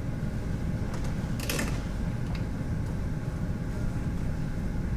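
Steady low room rumble and hum in a pause between talk and questions, with a brief rustle about a second and a half in and a few faint clicks.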